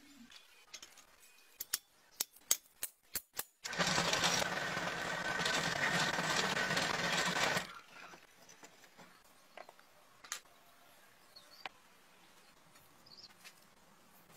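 Steel pieces clinking sharply a few times as they are fitted onto a rod, then a drill press runs with a steady hum and whine while boring into the stacked steel for about four seconds, and stops abruptly; only faint clicks follow.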